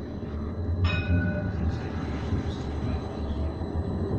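Edinburgh Trams CAF Urbos 3 tram running, heard from inside the car: a steady low rumble of traction equipment and wheels on rail. A short click and a brief high tone sound about a second in.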